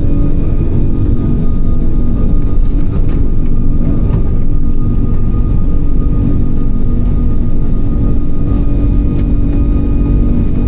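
Airbus A340-600's four Rolls-Royce Trent 500 turbofans at takeoff power, heard from inside the cabin: a loud, steady rumble with a few steady fan tones riding over it.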